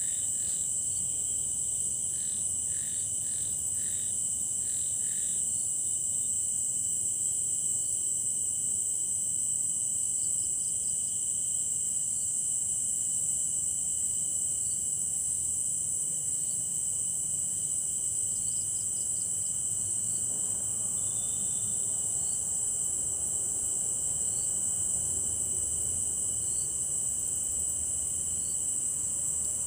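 Night insects singing in a steady, high-pitched, continuous trill, with a second, lower steady tone beneath it. A run of short chirps from another caller comes in the first few seconds.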